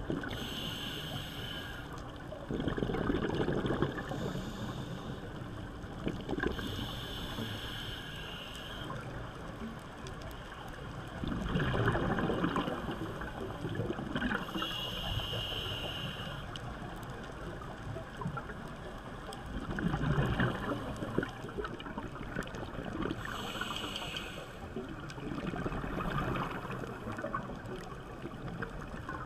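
A scuba diver breathing through a regulator underwater: a hissing inhale through the regulator followed by a burst of exhaled bubbles, about four slow breaths.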